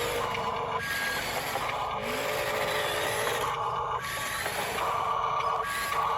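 Small electric motors and plastic gearboxes of toy construction vehicles whirring in short stop-start runs, the pitch jumping each time a different motion starts.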